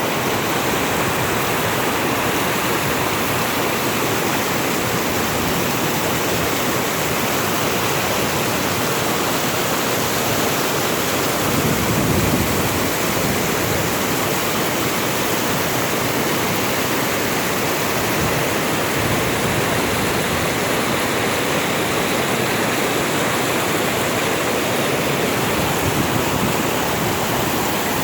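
Rushing water of a rain-swollen stream, running fast and loud after a night of heavy rain. The sound is steady, with a brief low swell near the middle.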